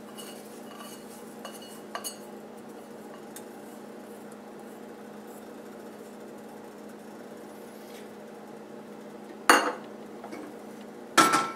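Steady low hum with a few faint ticks, then two sharp metallic clinks about a second and a half apart near the end, from a stainless steel measuring cup and saucepan being handled.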